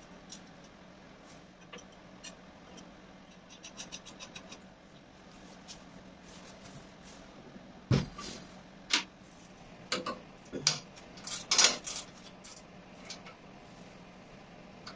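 Scattered light clicks and metallic knocks from tools and parts being handled while a handle and wheel axle are screwed onto a band saw. The louder clunks come in a cluster in the second half, over a faint steady hum.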